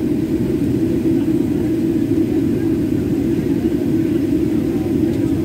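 Steady cabin noise inside a jet airliner taxiing on the ground, mostly a low rumble of the engines and cabin air, with a faint steady hum above it.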